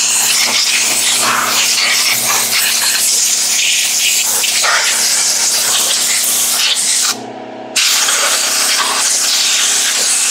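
Compressed-air blow gun hissing as it blows dust off a Stihl MS660 chainsaw, with one short break about seven seconds in. Under it, an air compressor runs with a steady hum, loud in its own words.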